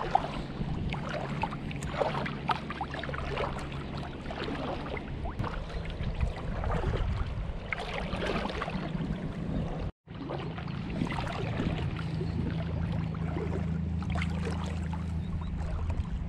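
Shallow salt water splashing and lapping around a wading angler, with small irregular splashes over a steady low hum.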